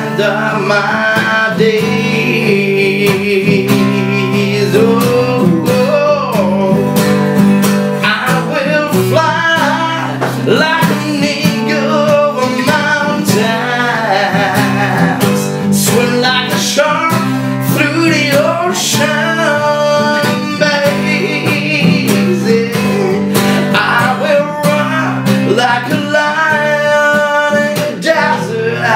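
A man singing loud, drawn-out vocal lines while strumming chords on an acoustic guitar.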